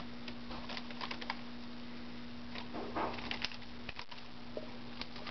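A pet sparrow pecking at and picking up a noodle: small scattered beak taps and clicks, with a busier flurry around three seconds in.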